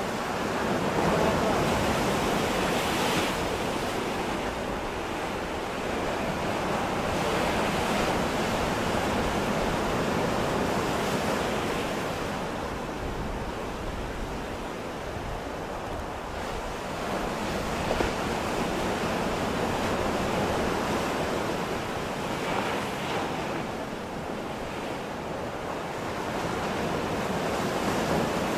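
Ocean surf breaking and washing on the shore: a steady rush of water that swells and eases every several seconds.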